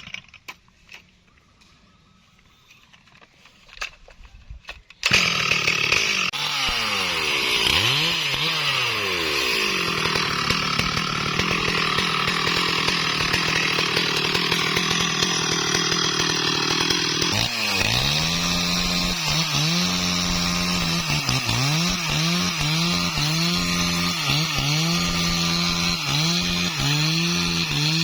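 Quiet for about five seconds, then a Stihl MS382 two-stroke chainsaw starts running loudly. Its engine pitch repeatedly drops and climbs back as it is throttled and loaded. In the second half the dips and rises come about once a second.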